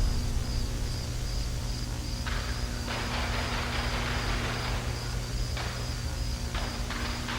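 Crickets chirping in an even rhythm, about three chirps a second, over a steady low hum and hiss. The hiss swells for a moment at several points.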